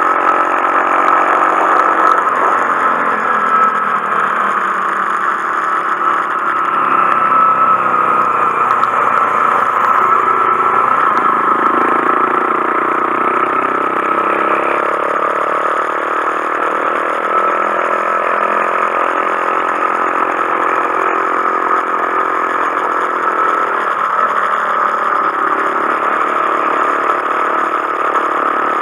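Honda Monkey 125's single-cylinder four-stroke engine running under way, its pitch rising and falling several times as the bike speeds up and eases off, over a steady high hum.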